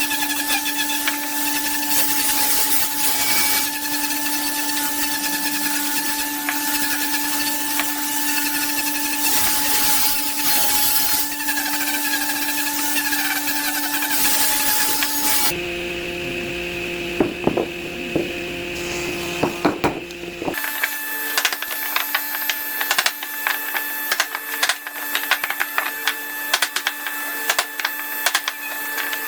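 Electric power tool running while working wood: a steady motor whine with a rasping noise over it. It changes abruptly twice, to a different steady tone and then back with many sharp clicks and knocks.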